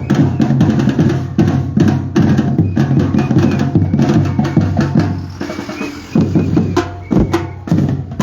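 Batucada percussion group drumming a loud, fast, steady rhythm.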